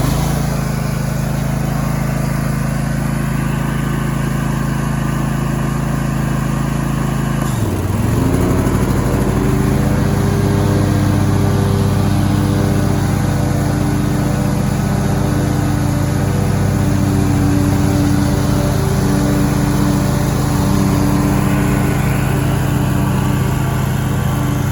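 Riding lawn mower engine running steadily, just after starting. About seven seconds in its pitch dips sharply and recovers, then it settles into a steady, fuller running sound.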